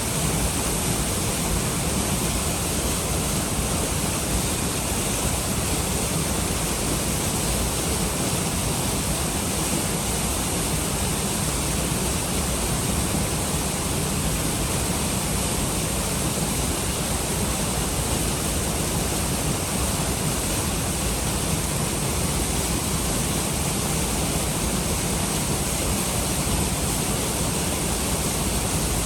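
Waterfall pouring steadily into a pool, a constant rush of falling water running high with spring snowmelt.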